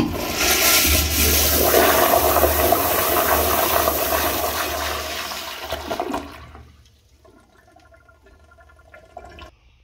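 Flushometer-valve flush of a 1.6-gallon Crane Whirlton siphonic toilet: a sudden loud rush of water that lasts about six seconds, then dies down to a faint trickle about seven seconds in. The flush is pretty strong, with the supply pressure turned almost all the way up.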